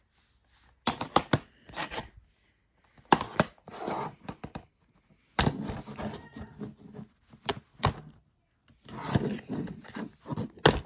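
A plastic VideoNow disc case being handled and opened by hand: scattered clicks, knocks and scraping in several short clusters, with one sharp click near the end.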